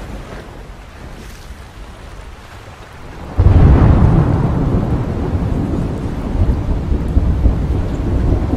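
Thunderstorm: a low rush of wind and rain, then a sudden loud crack of thunder about three seconds in that keeps rumbling under the rain.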